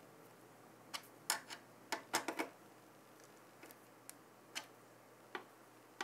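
Irregular small clicks and taps from cooler mounting spacers being hand-tightened onto backplate bolts around a CPU socket, several in quick succession about one to two and a half seconds in.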